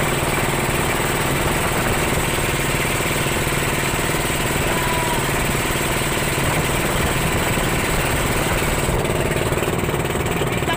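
Engine of a motorized fishing boat (lansa) running at a steady speed while the boat is under way.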